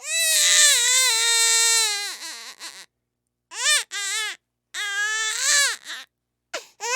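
Infant crying: a long wail of almost three seconds, then two shorter cries after a pause for breath, and a new wail starting near the end. Each cry drops in pitch as it trails off.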